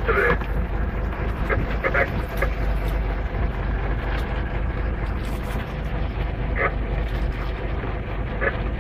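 Small fishing boat's engine running steadily, with a few brief high-pitched sounds over it.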